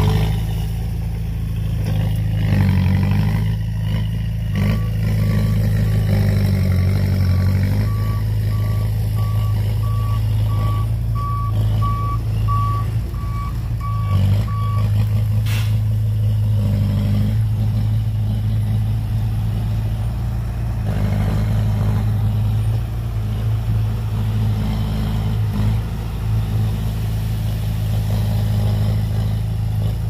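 Heavy diesel machinery running steadily, with a reversing alarm beeping at an even pace for about ten seconds, starting a few seconds in.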